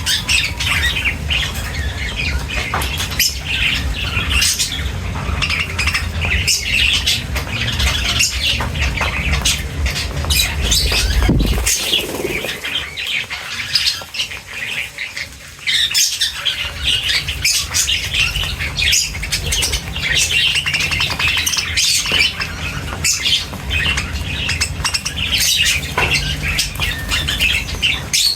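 A flock of birds feeding, chirping and squawking constantly over one another, with wings fluttering. The chatter eases about halfway through, then comes back loud all at once.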